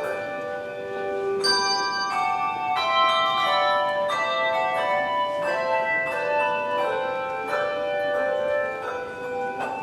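A handbell choir playing a piece of music: several bells struck together in chords about once a second, each chord ringing on into the next.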